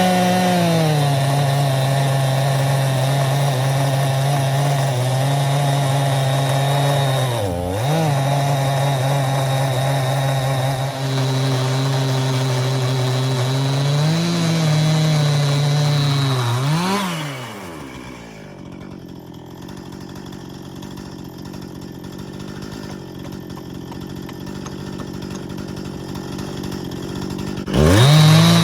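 Stihl MS261c two-stroke chainsaw with ripping chain, run at full throttle in a Granberg chainsaw mill as it rips along a cherry cant. The engine note holds steady under load, dipping briefly about 8 seconds in and climbing near 17 seconds. It then falls away to a much quieter stretch and revs back up just before the end.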